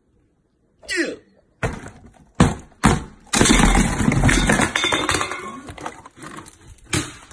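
Several sharp knocks and thuds, then a loud rough crash of about three seconds that fades out, with more knocks near the end.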